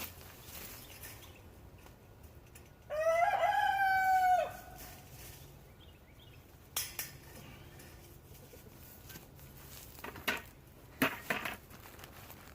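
A rooster crows once, a single call of about a second and a half, a few seconds in. A few sharp knocks follow later, near the end.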